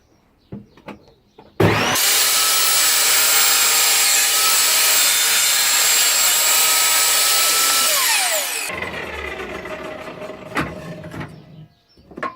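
Evolution Rage table saw switched on about a second and a half in, running loud with a steady whine for about seven seconds while ripping a strip of scrap wood, then switched off, its whine falling as the blade coasts down. Light knocks of the wood being handled come before and after.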